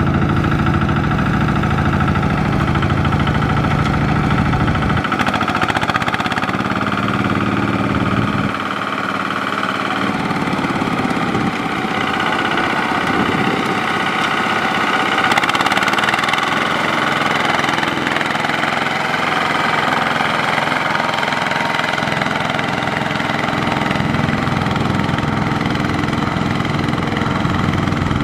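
Kubota RT120 power tiller's single-cylinder diesel engine running under load, hauling a trailer heavy with rice sacks through soft mud. Its low note drops off about eight seconds in and comes back near the end.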